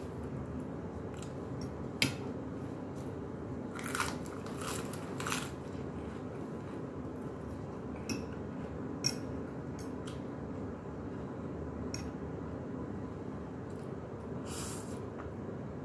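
A person eating noodles and lettuce: chewing and crunchy bites, with a few short sharp clicks scattered through, over a steady low background hum.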